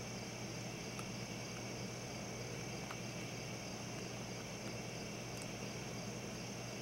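Steady, unbroken chorus of night insects over a constant hiss and low hum, with a few faint ticks scattered through.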